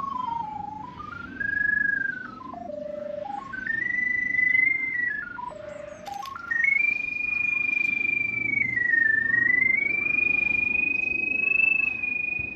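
Drain-tracing locator receiver sounding its single whistle-like tone, which steps up and down in pitch as the sonde's signal strengthens and weakens while the pipe's route is traced. The tone dips lowest about a third of the way in and again near the middle, then holds high for the rest.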